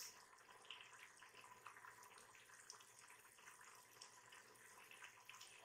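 Faint bubbling and light crackle of mutton curry boiling down in an open pressure cooker, its cooking water being boiled off. Many small ticks over a soft, steady hiss.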